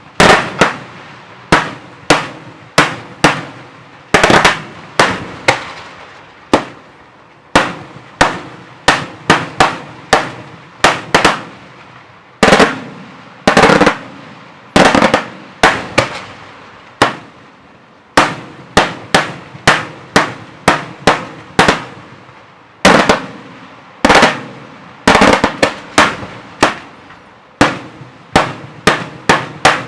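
Daytime fireworks: a continuous run of loud aerial bangs, about one to three a second at uneven spacing, each echoing away before the next.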